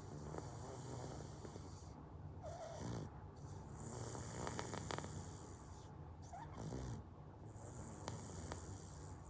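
A toddler snoring in his sleep: three long, noisy breaths a few seconds apart. The snoring has gone on every night for over a year and is thought to come from blocked adenoids.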